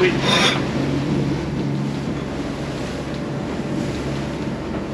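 Wind and sea noise aboard a Leopard 45 sailing catamaran underway in a rolling swell, with a steady low hum underneath and a brief rush of noise right at the start.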